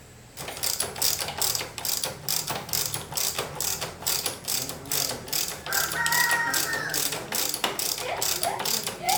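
Ratchet wrench worked in quick, even strokes, its pawl clicking about three to four times a second.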